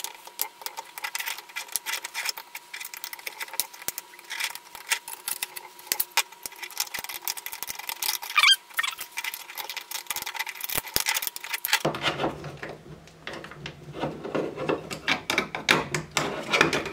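3D-printed PLA plastic parts of a multiple-gearing mechanism clicking and knocking as a crank is fitted and worked by hand, with one short rising squeak about eight seconds in. About twelve seconds in the clicks turn into a denser plastic-on-plastic rubbing and grating as the gears are turned.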